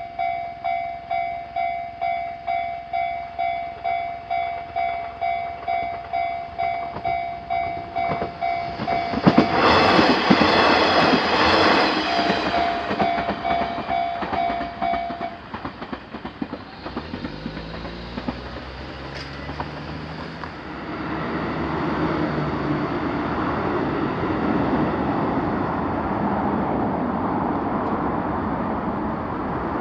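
Japanese railroad crossing's electronic warning bell ringing in an even, repeating beat while a train passes through. The train's rush and wheel noise swell suddenly about a third of the way in. The bell stops about halfway, and the train's running noise, with a low sliding motor tone, carries on through the rest.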